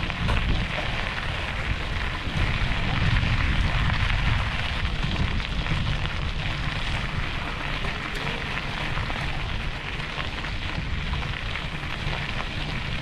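Wind buffeting the microphone, a steady uneven rumble with a hiss over it.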